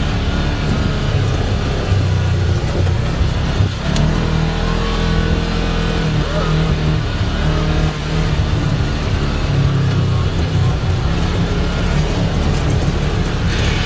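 ATV engine running as it is ridden along a dirt trail, its pitch shifting up and down with the throttle.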